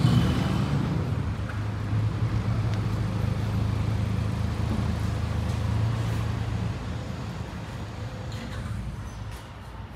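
A machine running with a steady low drone, like an engine or motor, that drops away about seven seconds in.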